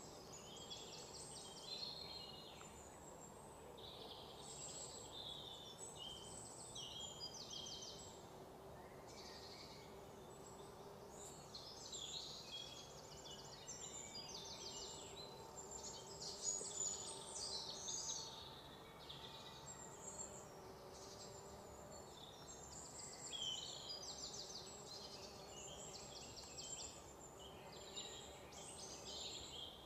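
A faint chorus of many small birds chirping and trilling, call after call, over a low steady background hiss.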